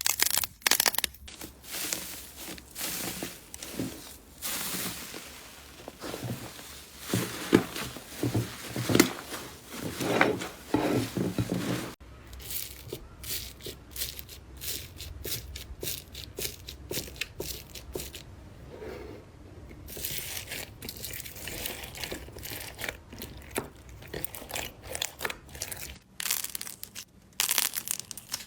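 Slime being squeezed and pulled by hand, with a crackly, crinkling sound full of small pops and crunches. The texture changes abruptly about twelve seconds in.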